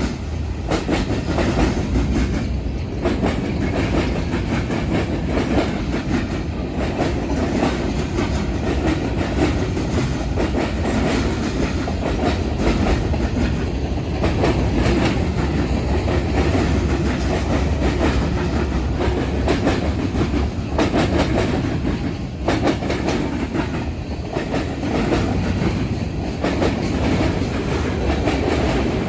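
BNSF freight train cars rolling by, their wheels clattering over a railroad diamond crossing in a continuous clickety-clack over a heavy rumble.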